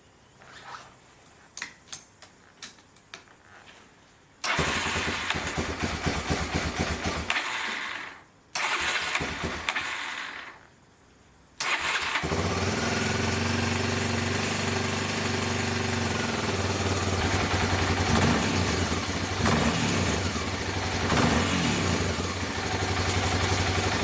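1995 Honda XL250 Degree's single-cylinder four-stroke engine on its first start after an oil change: after a few light clicks it starts, cuts out after about four seconds, catches again briefly and cuts out, then starts a third time and keeps running steadily.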